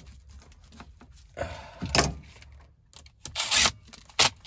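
Rubbing and scraping as tool fittings and hoses are handled and worked onto the end of a copper refrigerant line, with a short, loud burst of noise about three and a half seconds in.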